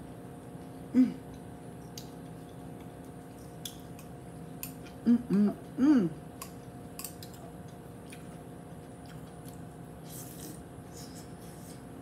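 Eating sounds from a bowl of ramen noodles: scattered light clicks of chopsticks against a glass dish, chewing, and a few short closed-mouth "mm" hums, one about a second in and three close together about halfway.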